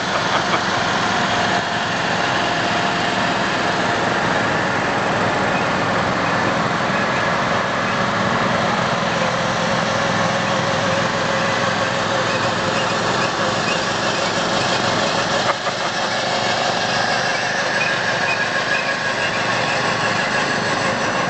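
Lawn mower engines running steadily.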